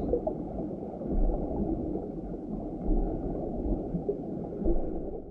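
Muffled underwater ambience: a dull rushing and gurgling of water with no high end, swelling louder three times, then cutting off suddenly at the end.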